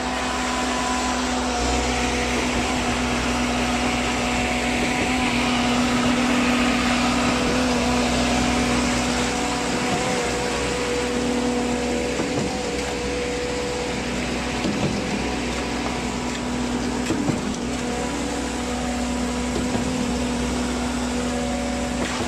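Shriram SCP 5000 concrete pump running steadily: a continuous mechanical hum with a fixed low pitch, a few faint knocks near the middle.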